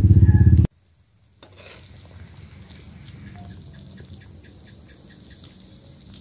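A small engine running with a steady, even throb, cut off abruptly less than a second in. Then faint background with a quick run of small chirps, about five a second, for a couple of seconds in the middle.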